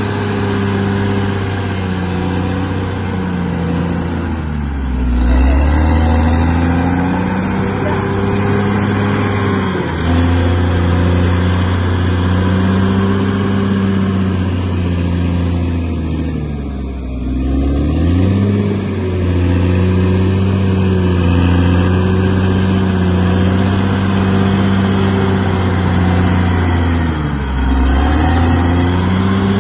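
Bulldozer's diesel engine running hard while working, its pitch sagging and recovering three times as the engine takes up load: about five seconds in, midway through and near the end.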